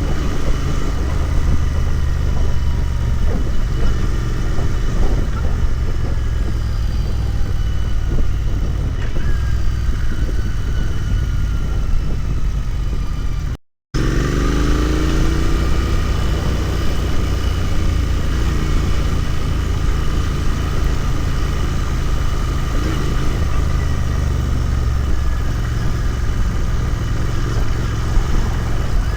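Royal Enfield Continental GT 650's parallel-twin engine running steadily under way, with wind noise. The sound cuts out completely for a moment about halfway through, and afterwards the engine note rises as the bike accelerates.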